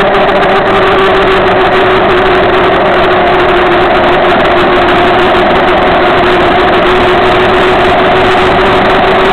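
Cagiva Elefant motorcycle engine running steadily at cruising speed, its even drone heard under a constant rush of wind noise on the bike-mounted microphone.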